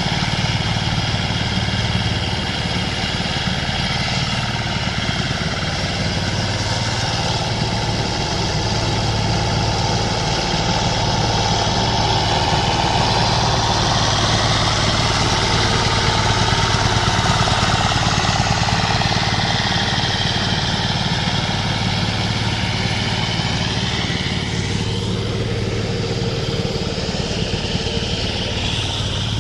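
Diesel engine of a walk-behind power lawn mower running steadily.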